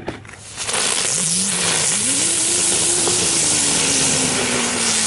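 A Category 1 ground firework burning on the ground, spraying sparks with a loud, steady hiss that starts about half a second in. Under the hiss a low tone rises and then slowly sinks.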